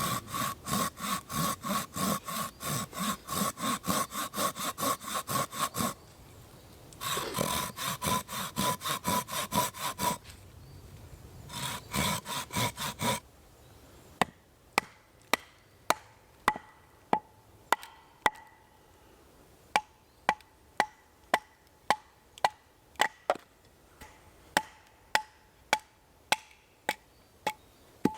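Hand saw cutting through a piece of wood in quick, even strokes, in three runs with short pauses, while roughing out a wooden bushcraft hammer. About halfway through the sawing stops and sharp wooden knocks follow at nearly two a second, as the wood is chopped and shaped.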